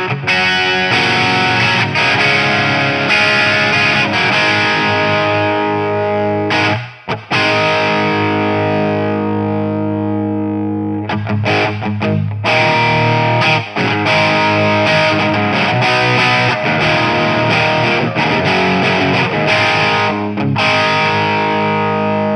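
Electric guitar played through a Mojotone British 800 kit amp, a JCM800-style tube amp with its preamp gain turned all the way up: distorted chords ringing out and sustaining, with a brief break about seven seconds in.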